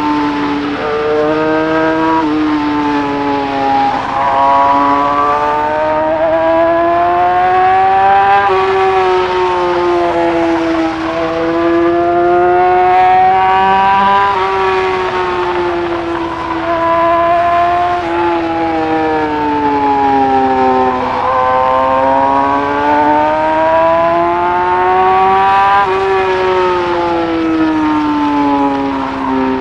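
2020 Yamaha R6's inline-four engine heard from the rider's seat at speed, the revs rising and falling in long sweeps as the bike accelerates and backs off, with wind and road noise underneath.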